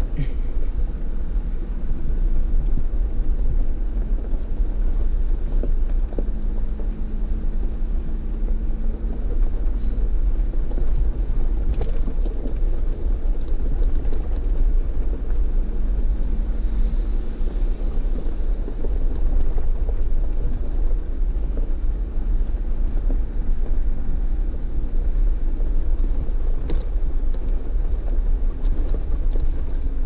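Jeep Wrangler running steadily as it drives off-road: a constant low rumble of engine and drivetrain with a faint steady hum over it.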